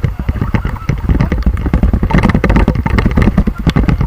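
River water rushing and splashing around a paddle raft: a loud, rumbling wash with many sharp splashes throughout.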